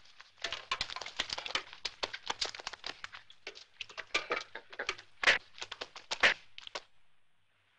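Paintbrushes slapping and swishing wet paint onto cloth uniforms in a fast, uneven run of short strokes, two of them louder near the end. The strokes stop about a second before the end, leaving a faint film hiss.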